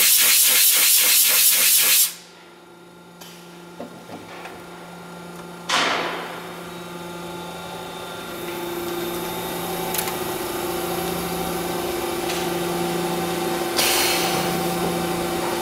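Okuma Robusturn LFS15-2SP CNC lathe running. A loud hiss pulses quickly and cuts off suddenly about two seconds in. After that a steady machine hum with a low tone runs on, broken by a short hiss near six seconds and a longer loud hiss from about fourteen seconds.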